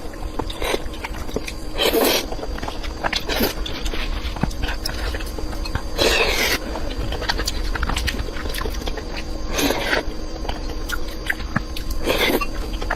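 Close-miked eating: chewing and wet mouth clicks, with a louder, longer burst of mouth noise every couple of seconds, six in all.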